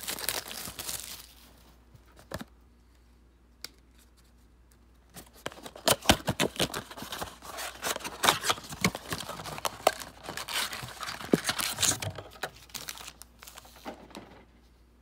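Plastic wrapping of a trading-card blaster box and its packs crinkling and being torn open: a short spell of crinkling, a quiet pause of a few seconds broken by a couple of clicks, then dense crackling and tearing from about five seconds in until near the end.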